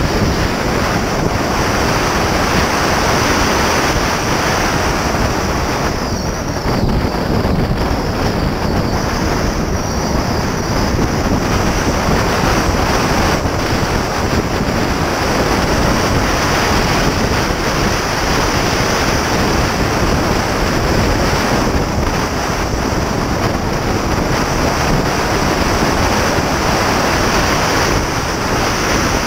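Steady rush of wind and road noise from a 2006 Porsche Cayman S driving at about 45–55 mph, with wind buffeting the microphone.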